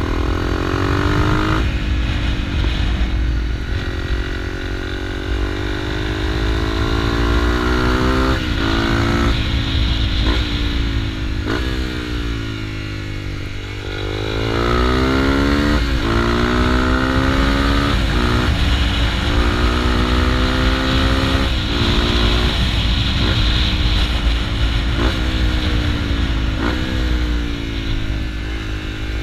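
Honda CRF250L's single-cylinder four-stroke engine under way, pulling through the gears. Its pitch climbs and then drops sharply at each gear change, many times over. About halfway through it eases off and winds down, then accelerates again.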